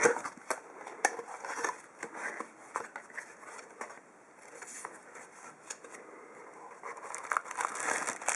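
Cardboard box and packaging being opened and handled: irregular rustles, scrapes and clicks, with a sharp knock right at the start. It goes quieter about halfway through, then the rustling picks up again near the end.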